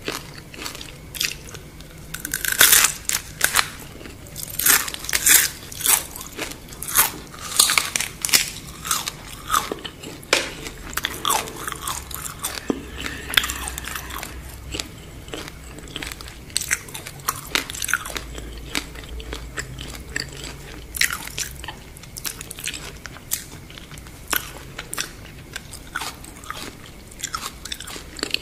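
Biting and chewing a deep-fried scorpion close to the microphone: irregular, sharp, crackling crunches of its crisp fried shell. They are loudest and most frequent in the first several seconds, then settle into softer chewing.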